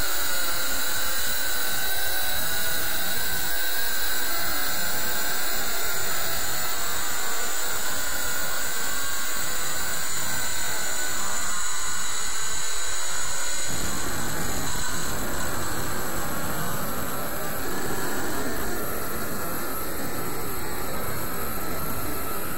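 Steady, loud hissing drone with several high steady whistling tones running through it; about two thirds of the way in it grows fuller and deeper.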